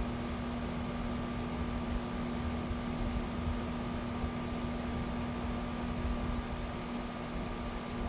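A steady mechanical hum with a constant low tone, like a fan or motor running, over a low rumble.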